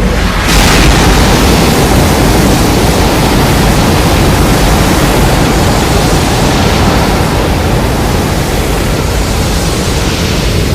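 A loud, steady rushing noise with a deep rumble underneath, swelling about half a second in and holding level: a sound effect.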